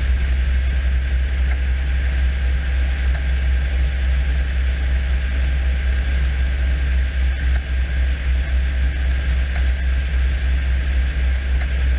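Small high-wing propeller plane's engine droning steadily in flight, a deep, even hum with no change in pitch.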